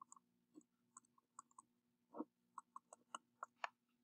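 Faint, irregular clicks and ticks of a pen writing on paper, over a low steady hum.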